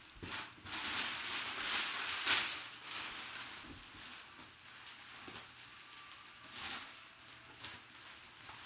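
Rustling and crinkling of packaging being handled and opened, loudest in the first few seconds with a few sharp crackles, then fainter.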